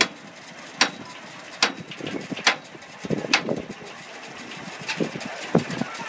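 Steam engine driving a sawmill, running slowly while the saw is not cutting, with a sharp click repeating at an even beat a little under once a second.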